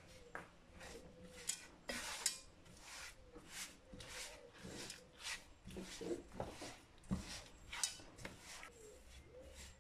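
Silicone spatula stirring and scraping a crumbly jaggery-and-flour mixture around a nonstick kadai, in repeated short scraping strokes about twice a second.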